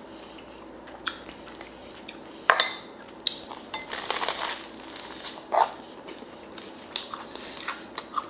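Metal spoon clinking and scraping against a glass bowl of stew in a string of sharp clicks, with a crackle about four seconds in as a crusty Vietnamese baguette is bitten into.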